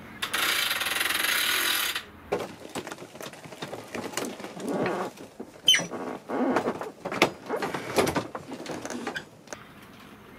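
A steady hiss for about two seconds, then an irregular run of knocks, clicks and creaks as the pop-top roof of a 1994 Jayco Discovery caravan is pushed up by hand. Several sharp clunks and a short squeak come around the middle.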